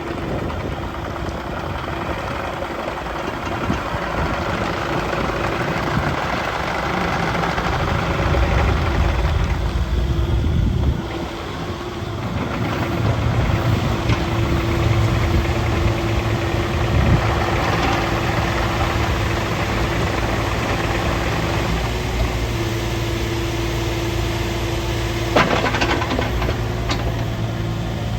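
Kubota U48-5 mini excavator's diesel engine running, getting louder and easing off at times, with a steady whine through much of it. A sharp knock comes about 25 seconds in.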